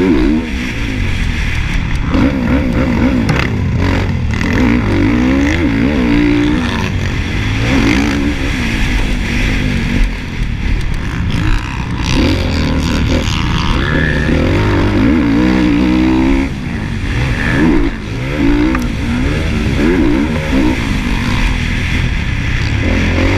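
Honda motocross bike engine under race throttle, heard from on board: the revs climb and fall again and again as the throttle is opened and shut, with the throttle briefly chopped twice about 16 and 18 seconds in.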